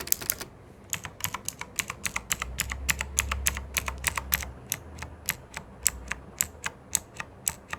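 Keys of a TVS Platina wireless mechanical keyboard pressed one after another: a string of sharp clacks, about five a second at first, then slower and more spaced out toward the end. Each key clacks on the way down and is silent coming back up.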